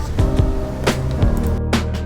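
Background music with a steady beat: sustained low tones under sharp percussive hits.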